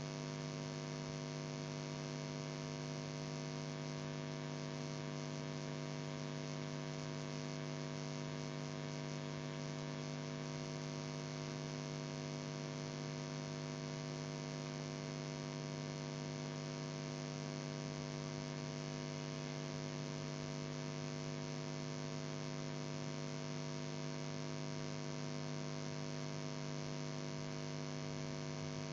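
Steady electrical mains hum with a faint even hiss underneath, the noise floor of a cassette tape transfer playing on with no programme.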